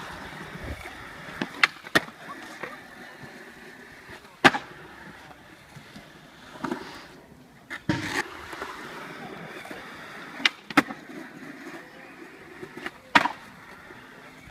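Skateboard wheels rolling on concrete, broken by several sharp clacks of a board popping and landing.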